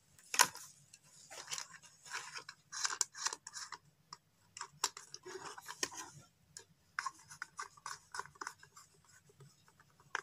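Insulated electrical wires being handled and twisted together by hand to join the neutral connections: irregular scratching and rubbing with small clicks, the sharpest about half a second in.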